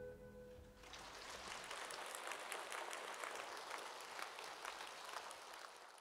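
An orchestra's last held chord dies away, and about a second in an audience starts applauding.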